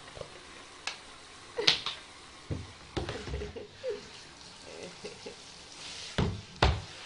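A wet Lhasa Apso whimpering in short, high whines during its bath, over sharp knocks and splashes against the bathtub, two of them loud near the end. A hand shower's spray hisses in near the end.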